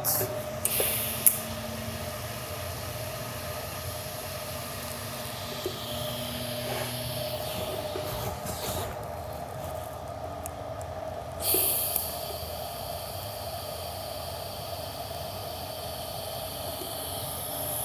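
TIG welding on 4130 chromoly tubing with an Everlast PowerTIG 210 EXT at about 90 amps, high-frequency start and foot pedal, over a steady machine hum and hiss. About eleven seconds in the arc strikes with a sudden loud burst, then buzzes steadily for several seconds as a tack is laid.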